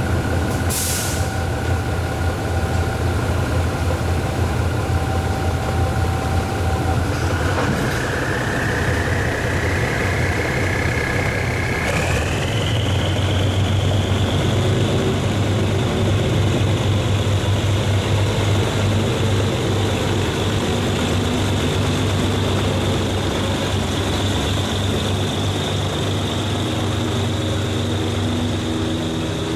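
General Electric UM12C diesel-electric locomotive with twin diesel engines pulling away with its train: a steady low engine rumble under a high whine that steps up in pitch twice as it gathers speed, then holds steady as the coaches roll past.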